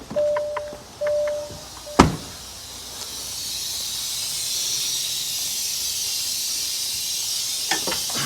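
A truck's warning chime beeps at a steady rate and stops with a sharp clack about two seconds in. From about three seconds on there is a steady high hiss of air from the truck's air system.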